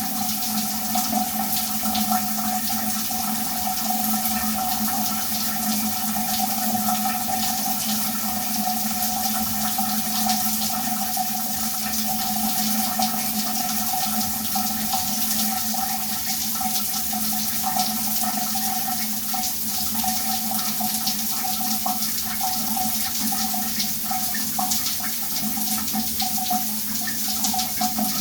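Shower running steadily: a dense, even spray of water drumming onto a floor or tub, with a steady hollow hum under it.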